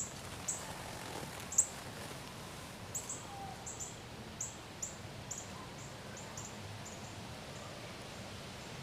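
A small bird giving a run of short, high chirps, irregularly spaced, thinning out and stopping about seven seconds in, over a faint outdoor hiss.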